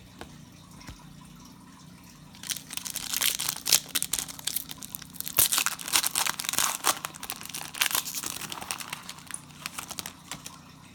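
Crinkly plastic-foil trading-card pack wrapper being torn open and crumpled: a dense run of sharp crackles starting a little over two seconds in and stopping near the end.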